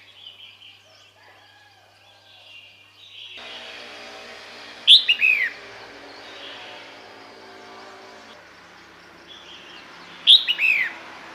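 Female red-whiskered bulbul calling: two short phrases about five seconds apart, each a sharp high note followed by a few quick notes falling in pitch. It is the female's call, the one used to draw males in.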